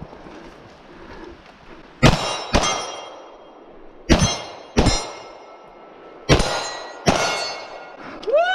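Six gunshots fired in three quick pairs, each followed by the clang and ring of steel targets being hit.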